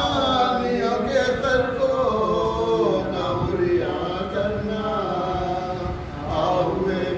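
Man chanting a marsiya, an Urdu elegy for the martyrs of Karbala, in a drawn-out melodic recitation with long, bending notes.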